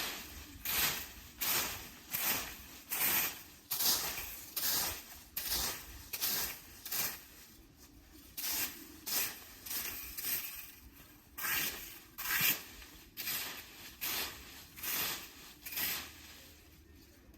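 Rhythmic scraping or sweeping strokes of a hand tool on a rough surface, about one and a half strokes a second, each a short rasping swish.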